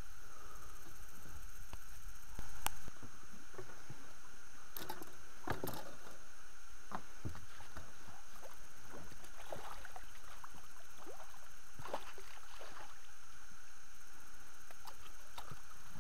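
A hooked pike splashing and thrashing irregularly at the water's surface beside an inflatable boat as it is played on a spinning rod, over the steady hiss and whine of a small action camera.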